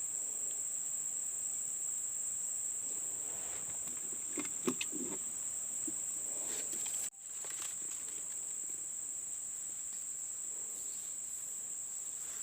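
Insects chirring in a steady, high-pitched drone, with a brief sudden dropout about seven seconds in. Faint rustling and light knocks near the middle.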